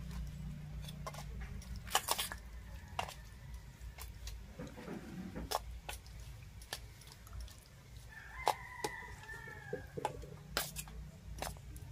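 Steel spoon clinking and scraping against stainless steel bowls as greens are served out, a dozen or so sharp clinks spread through. A chicken's call sounds once, about eight and a half seconds in.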